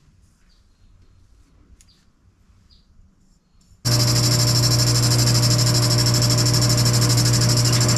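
A few seconds of near quiet with faint clicks, then a metal lathe turning a cast iron pulley cuts in abruptly, loud and steady: a low motor hum with several steady higher tones and a bright hiss over them.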